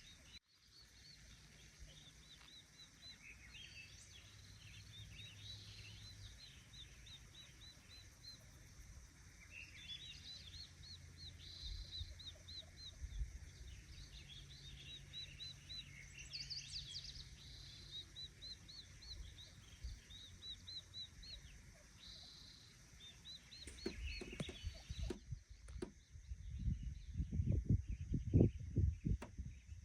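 Songbirds chirping in rapid series of short repeated notes over a quiet woodland background. In the last few seconds, irregular low rumbling bursts take over and become the loudest sound.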